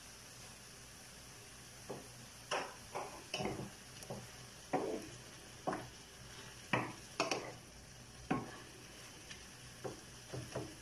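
A wooden spatula stirs and scrapes pieces of pork belly adobo around a nonstick frying pan in short, irregular strokes, roughly one a second, starting about two seconds in. The sauce simmers faintly underneath.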